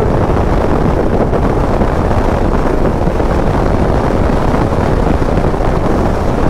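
Steady rush of wind buffeting the microphone while riding a KTM 250 Adventure at road speed, with the bike's single-cylinder engine running underneath.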